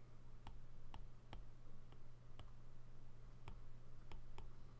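Stylus tip tapping and clicking on a tablet's glass screen while handwriting, a string of faint, irregular sharp clicks at about two to three a second.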